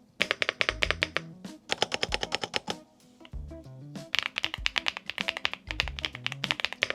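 Fast typing on a mechanical keyboard: quick runs of clacky keystrokes, with a short pause about three seconds in, over background music with a bass line.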